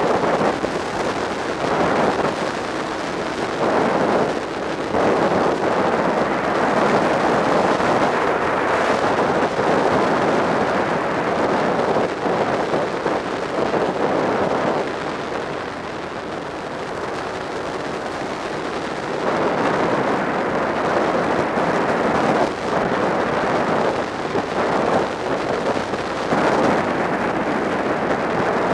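Wind rushing over the microphone of a camera on a moving motorcycle, mixed with the bike's engine and road noise as it rides at speed. It eases slightly about halfway through, then picks up again.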